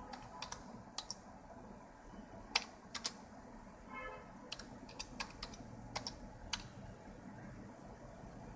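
Keystrokes on a computer keyboard: slow, uneven typing, about a dozen separate key clicks.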